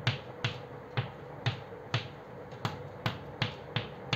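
Chalk tapping dots onto a chalkboard: a steady run of sharp taps, a little over two a second.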